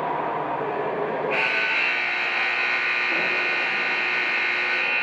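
A loud electric horn, like a rink's game horn, sounds one steady blast of about three and a half seconds. It starts abruptly a little over a second in and cuts off just before the end, over a background of rink noise.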